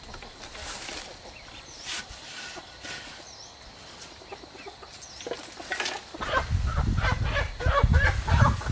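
Chickens clucking, then from about six seconds in a louder, busier run of clucks over low thuds.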